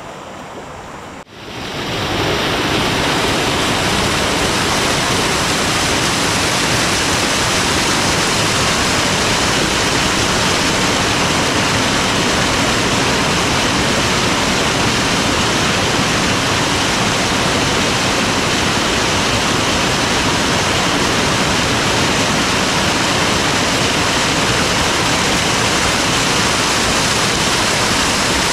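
Loud, steady rush of a river's flowing water, cutting in abruptly about a second and a half in and holding even throughout.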